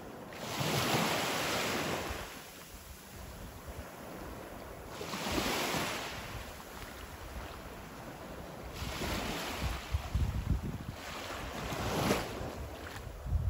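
Small waves washing onto a sandy beach, about four swells that rise and fall every three to four seconds, with wind buffeting the microphone.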